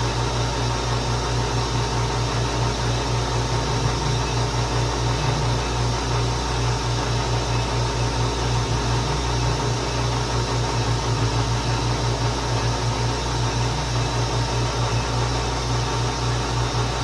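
Big metal lathe running steadily: an even machine noise over a low hum that flutters rapidly, while the tool is touched off on the work.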